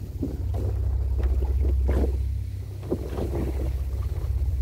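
Small river boat's motor running steadily under way, a low even drone, with irregular splashes of water against the hull.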